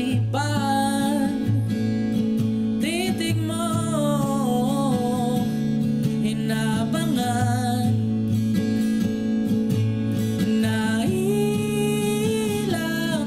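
Song with a young male singer and acoustic guitar accompaniment: sung phrases with pauses between them over steadily strummed guitar.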